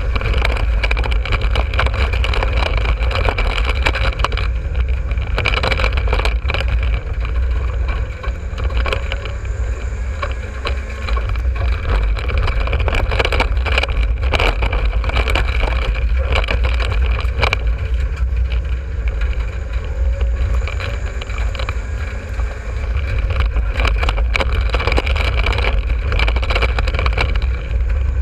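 A dirt-track race car's engine running under way, heard from inside the cockpit as a loud, steady low rumble. Frequent rattles and knocks from the car's chassis run through it, and the engine eases briefly twice.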